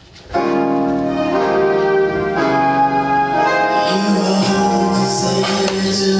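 Music starting up after a brief drop in level: held chords that change every second or so, with a bass line and a beat coming in about four seconds in.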